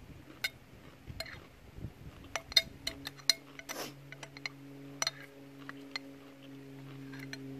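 Metal spoon clicking and scraping against a clear plastic lunch container as someone eats rice from it, in a string of sharp, irregular clicks. A steady low hum comes in about three seconds in.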